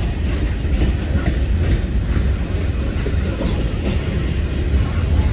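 Freight cars of a Norfolk Southern freight train (boxcars, gondolas and lumber-loaded centerbeam flatcars) rolling past: a steady low rumble of steel wheels on rail with occasional clicks.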